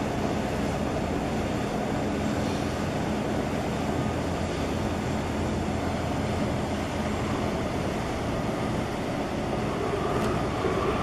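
Large container ship passing close, its machinery giving a steady low rumble and hum under an even rushing noise.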